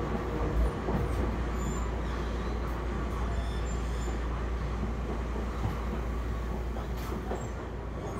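Interior running noise of a Toyama Chihō Railway 20020-series electric train, the ex-Seibu New Red Arrow, which runs on bogies and traction motors carried over from the original Red Arrow. The car's deep, steady rumble and rattle go on throughout, with a few light knocks and a sharp click about seven seconds in.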